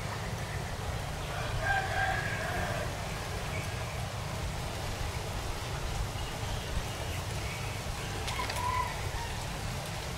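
A rooster crowing, once about a second in and again more briefly near the end, over a steady low rumble.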